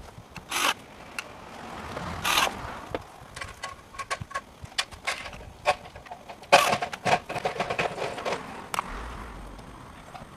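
Tools and small hardware being handled while fitting PVC drain pipe: a few short scrapes and a scatter of clicks and rattles, with the loudest burst about six and a half seconds in.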